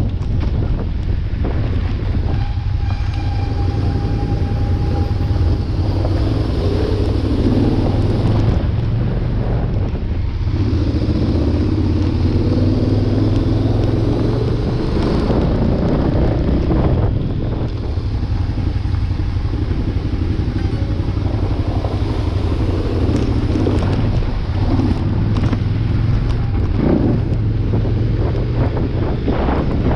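Motorcycle engine running steadily while riding along a gravel road, with wind buffeting the on-board microphone. A few brief crackles come near the end.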